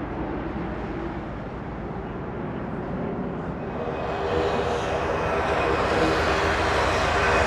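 Jet airliner engine noise: a steady rumble from a twin-engine jet climbing away after take-off, then from about four seconds in a louder, hissier jet sound that keeps building.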